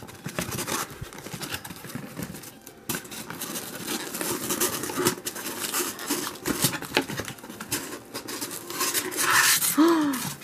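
A cardboard box and its styrofoam packing blocks being handled: irregular rustling and scraping as the flaps are opened and the foam is pulled out, with a few sharp clicks and a short gliding squeak near the end.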